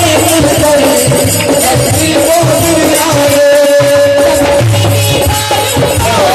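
Instrumental interlude of a Hindi devotional bhajan: a held, gliding melody line over a steady drum beat with rattle or shaker percussion.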